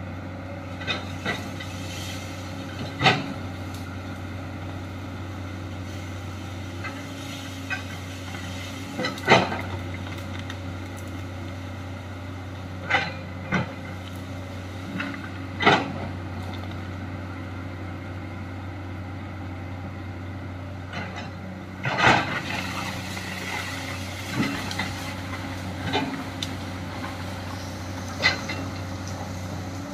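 Komatsu hydraulic excavator's diesel engine running steadily while digging, with sharp knocks and clanks from the bucket and boom every few seconds and a longer scraping rush of soil about two-thirds of the way through.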